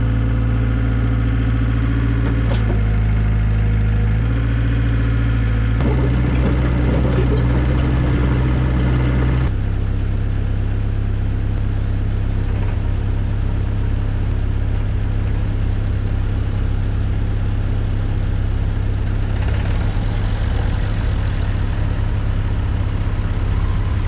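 Compact excavator's diesel engine running steadily. Its note shifts about six seconds in and drops slightly about ten seconds in.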